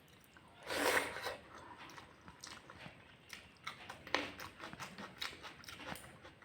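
Close-up eating sounds of a person eating egg curry with rice: wet chewing, mouth smacks and clicks, with a louder noisy burst about a second in.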